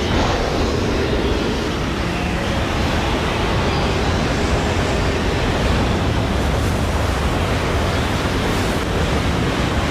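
Tornado sound effect: a steady, loud rush of wind with a deep rumble underneath.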